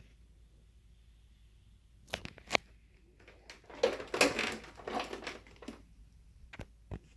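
Handling noises: two sharp clicks, then about two seconds of rustling and crinkling, then two more clicks near the end.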